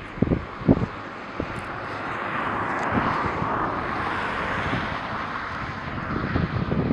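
An aircraft passing over, heard as a steady rushing engine noise that swells to its loudest about halfway through and then eases off. A few low wind thumps hit the microphone in the first second.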